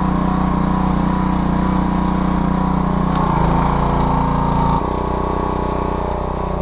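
Pressure washer running steadily while spraying soap, its note shifting a little past three seconds in and changing abruptly near five seconds.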